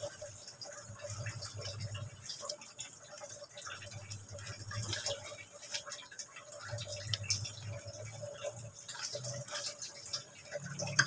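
Thick chicken tomato sauce simmering in a frying pan, with many small bubbling pops while a spatula stirs and scrapes through it. A faint low hum runs underneath.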